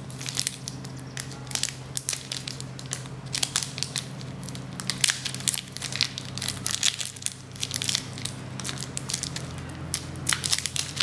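A trading-card pack wrapper being torn and peeled open by hand, crinkling and crackling irregularly throughout, over a steady low hum.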